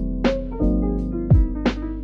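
Background music: sustained keyboard chords over a drum beat.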